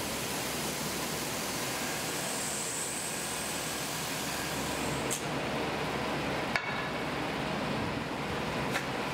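CNC mill face-milling 6061 aluminium rails flat, a steady hiss of cutting and air, with a brief high whine about two and a half seconds in and three sharp clicks in the second half.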